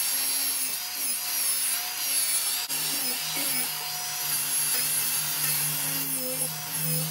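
Cordless angle grinder with a sanding disc running against a wooden tabletop, sanding the old finish off. The motor's whine wavers up and down in pitch as the disc is pressed into the wood and eased off, over a steady gritty hiss of abrasion.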